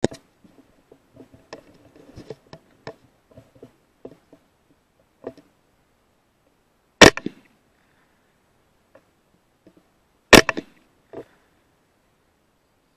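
Two rifle shots, the first about seven seconds in and the second about three and a half seconds later, each a sharp crack with a short tail. Faint clicks and small knocks of the rifle being handled come before them.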